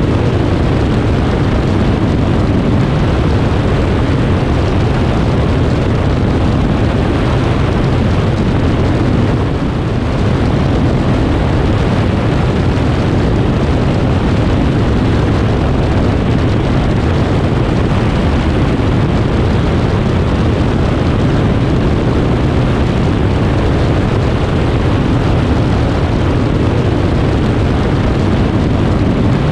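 Aeroprakt A22 LS light aircraft in cruise flight: its Rotax 912 engine and propeller running steadily under loud wind rush on an externally mounted camera. The level dips briefly about a third of the way in.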